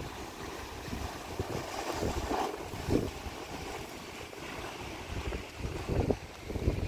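Wind buffeting the microphone in gusts, strongest about three and six seconds in, over the wash of sea surf on rocks.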